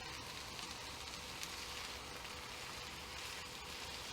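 Mutton roast masala sizzling in an open pan over the flame: a steady, faint frying hiss.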